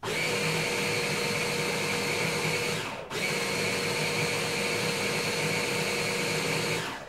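Stick blender running steadily as it purées green curry paste in a container. It stops for a moment about three seconds in, starts again, and cuts off near the end.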